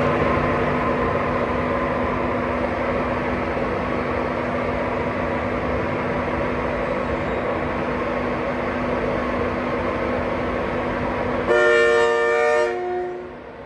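Electric express train running along the platform, a steady rumble and hum, with a brief two-tone train horn blast near the end, the lower note trailing a moment after the higher one stops. The train is an LNER Class 91 locomotive (91 109) hauling an InterCity 225 set.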